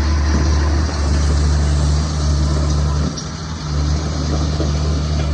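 Bobcat 435 mini excavator's diesel engine running steadily, its note dipping briefly a little after three seconds.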